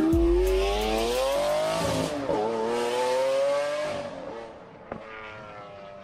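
Car engine revving, added as a sound effect: the pitch climbs steadily for about two seconds, dips briefly, holds high, then fades away about four seconds in.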